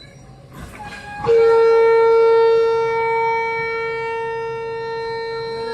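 Diesel locomotive air horn sounding one long steady blast of about four and a half seconds, coming in about a second in after a brief rush of noise. It is loudest at the start, eases slightly and cuts off at the end.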